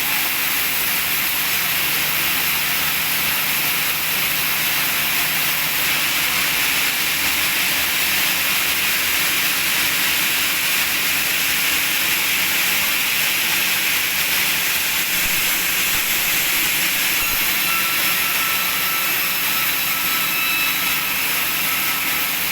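Sawmill machinery running steadily: a loud, continuous hiss-like noise with a faint low hum beneath it, unbroken throughout.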